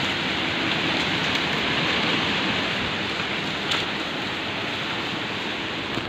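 Wind blowing through the trees, a steady rushing noise.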